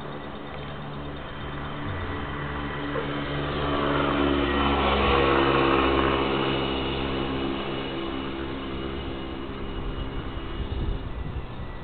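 A passing engine: its note swells to a peak about five seconds in, dips slightly in pitch as it goes by, and fades away.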